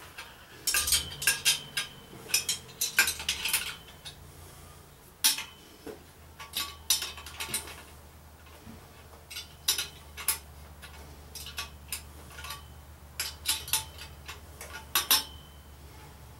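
Irregular clinks and clatter of metal on metal as tools and steel pipe are handled on a workbench, with a low steady hum underneath.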